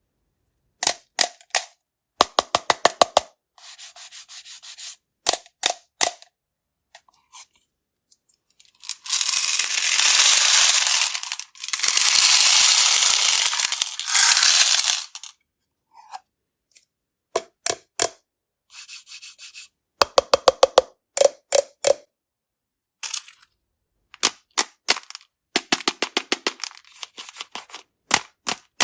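Small hard-shelled candies clattering in a plastic tub: runs of rapid sharp clicks, with a longer rushing pour of candy in the middle. The audio cuts in and out between clips.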